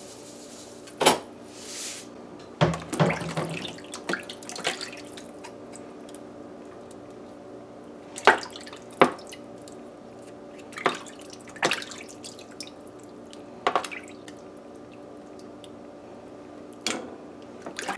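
Hands washing cubed raw pork in a plastic bowl of water in a stainless steel sink: irregular splashes and drips every second or two as the pieces are stirred, lifted and squeezed.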